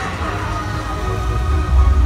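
Show soundtrack music playing over outdoor loudspeakers, with a heavy bass that swells near the end.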